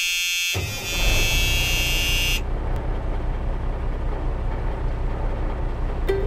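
A loud, steady buzzing horn-like tone that stops about two and a half seconds in, overlapping a low, uneven rumbling like a vehicle running, which carries on to the end.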